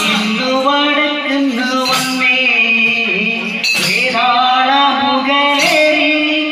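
Chinth paat devotional bhajan: voices singing, a man's voice strongest, over small hand drums. Sharp percussion strikes land about every two seconds.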